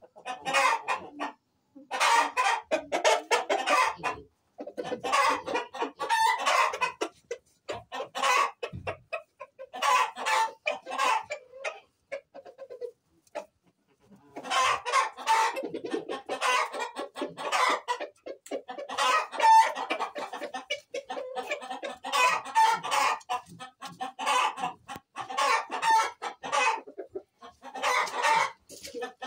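Chickens clucking and cackling in repeated bursts of a second or two, with short pauses between.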